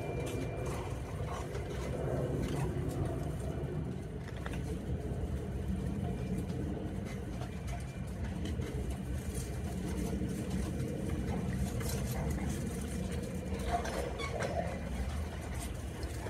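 Steady low rumble with a few faint clicks and knocks.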